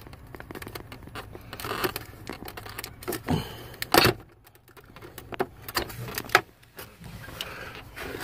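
Scattered plastic clicks and rattles of a dash wiring-harness connector and trim being handled and unplugged, with sharper snaps about four seconds in and again a little past six seconds.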